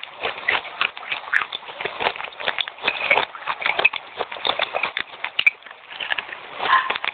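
Fast, crisp crunching as a person chews wet red clay chips: a rapid, irregular run of crunches with no let-up.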